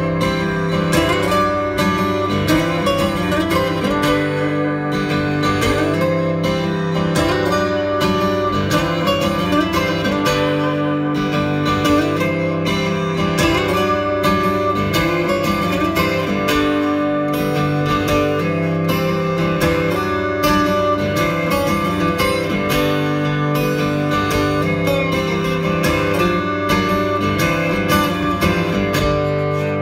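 Solo acoustic guitar played live: a steady stream of plucked notes over ringing, held bass notes.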